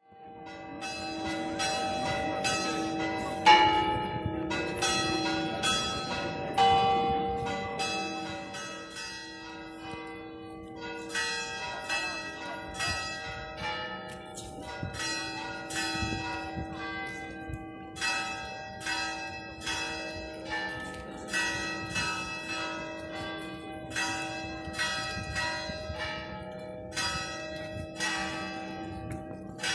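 Church bells pealing, struck over and over about one to two times a second, their tones ringing on and overlapping. One strike about three and a half seconds in stands out as the loudest.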